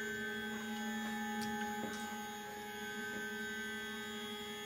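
Shapeoko XXL CNC stepper motors whining steadily as the gantry makes a rapid jog toward the front of the bed.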